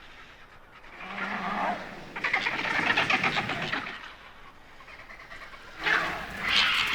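Griffon vultures squabbling over a carcass: harsh, rasping hisses and grunts that come in three bursts, the longest in the middle.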